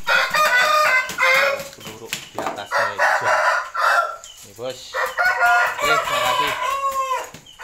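Rooster crowing, a loud harsh call repeated three or four times.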